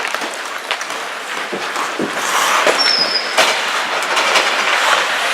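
Ice hockey play on the rink: skate blades scraping the ice and sharp clacks of sticks and puck, over a steady rink and crowd noise that swells about two seconds in.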